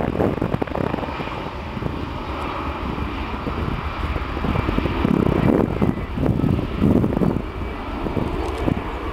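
Airbus A320's twin jet engines at takeoff power as the airliner accelerates along the runway: a steady, rushing engine noise with a thin high whine over it.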